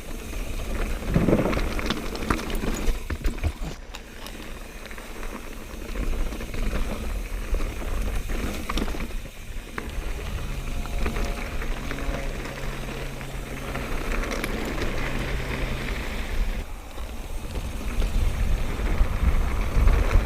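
Mountain bike riding on a dirt trail: tyres crunching over loose ground, the bike rattling and clicking over bumps, with a low wind rumble on a helmet-mounted action camera's microphone.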